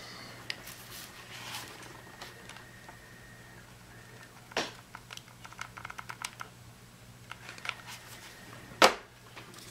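Plastic kit parts and a hot glue gun handled on a wooden workbench: scattered light clicks and taps, with two louder knocks, one about four and a half seconds in and one near the end.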